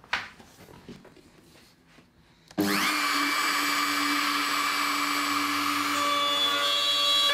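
A knock, then about two and a half seconds in a Makita RT0700C trim router is switched on, spins up in a moment and runs with a steady high whine as its straight bit cuts a groove in the wood.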